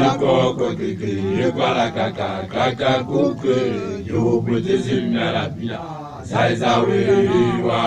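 A young Basotho man chanting praise poetry (lithoko) loudly, in rapid phrases that rise and fall in pitch.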